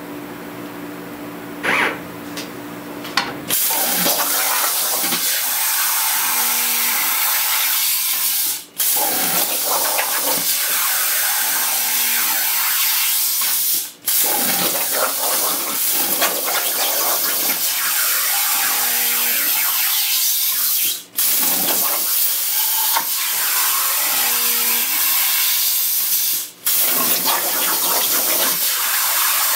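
Hypertherm Powermax65 plasma torch cutting 3/16-inch mild steel: after a few clicks, the arc starts about three and a half seconds in with a loud, steady hiss. The hiss breaks off briefly four times, between line cuts.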